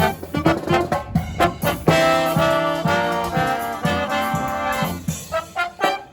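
Live brass band, trumpets and trombones leading, playing a jazzy tune. It opens with short punchy notes, moves into held chords, then returns to choppy phrases with a brief break near the end.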